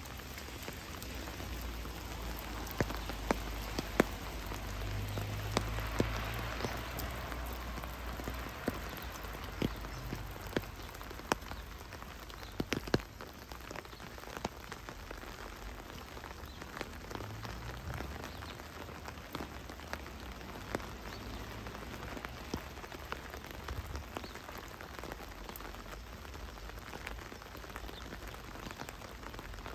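Heavy rain falling steadily, with frequent sharp ticks of drops striking close by. A low rumble swells under it in the first several seconds, then fades.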